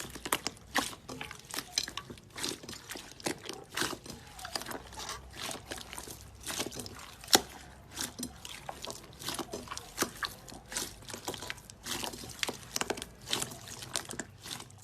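Slime being worked by hand: a dense, irregular run of wet, sticky clicks and pops.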